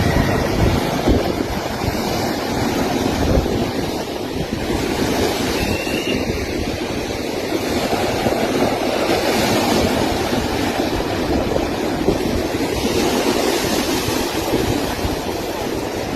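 Rushing water, a steady loud rush, with wind buffeting the microphone.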